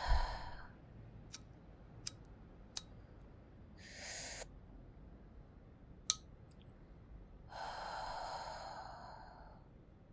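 A woman's breathing on waking from a nightmare: a sudden breath with a low thump at the start, an in-breath about four seconds in, and a long sigh near the end, with a few small clicks in between.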